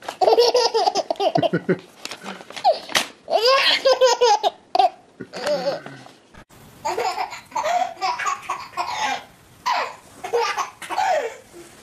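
A baby laughing hysterically in repeated bursts as paper is torn in front of her, with short paper rips between the laughs. About six seconds in, the sound cuts to another recording in which more laughter follows.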